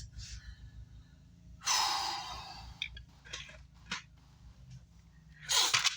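A man's breathing close to the microphone: a long exhale about two seconds in that fades out, and a short breath near the end, over a low steady hum.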